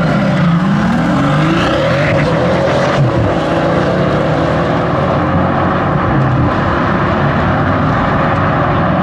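Two Pagani Huayra hypercars with twin-turbo V12 engines launching at full throttle from a standing start and accelerating hard away. The engine note climbs in pitch and drops back with each upshift, in a loud, steady run.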